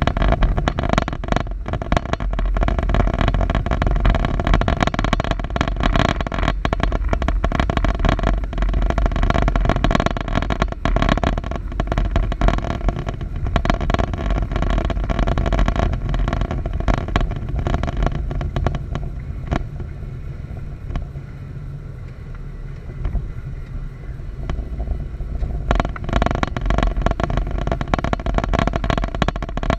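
Engine running steadily with a rough, crackly noise over it; it goes quieter and duller for a few seconds past the middle, then picks back up.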